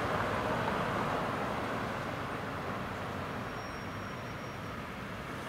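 Road traffic crossing a level crossing: cars and a refuse truck driving by with steady engine and tyre noise that eases slightly toward the end.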